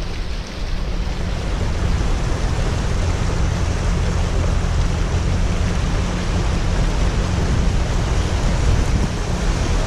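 Floodwater churning and washing steadily as a truck drives slowly through water covering the road, pushing a bow wave ahead of its front wheels. Wind buffets the microphone with a low rumble.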